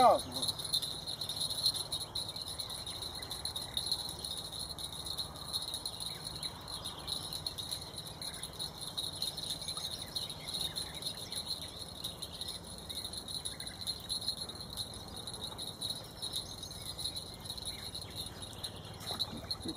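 Insects chirring steadily at a high pitch.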